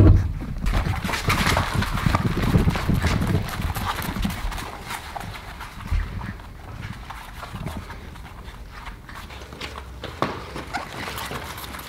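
English bulldog puppies' claws clicking on a hard wood-look floor as they scramble about, with a loud bump right at the start.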